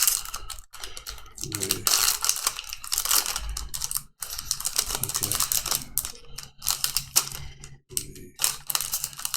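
Trading cards and a foil booster-pack wrapper being handled: quick rustling and clicking with brief pauses.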